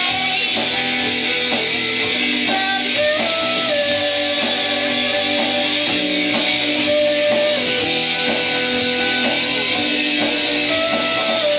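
Live rock band playing: strummed 12-string acoustic guitar, electric lead guitar, bass guitar and drums, at a steady level.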